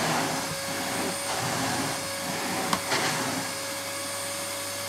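AEG PowerForce bagged cylinder vacuum cleaner running steadily at reduced suction, its floor nozzle on carpet, with one knock about halfway through. Right at the end its motor winds down, the whine falling in pitch.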